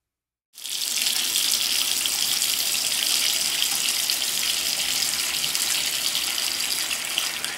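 A steady, loud rushing hiss, like running water, that starts abruptly about half a second in after silence: the sound effect under the channel's outro card.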